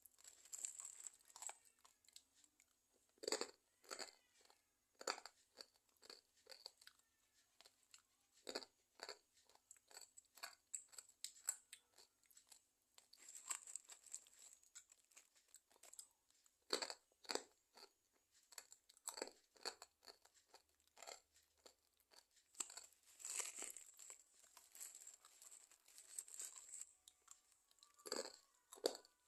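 Crunchy fried macaroni snack (makaroni bantet) being bitten and chewed close to the microphone: a run of sharp, irregular crunches, at times several a second.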